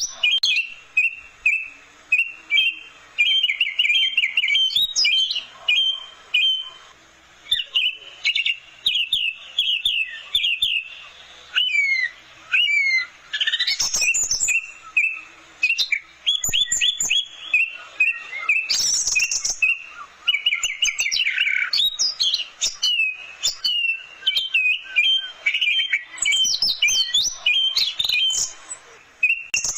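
Orange-headed thrush singing a fast, varied song of quick chirps, trills and slurred whistles, run together in long phrases with short pauses.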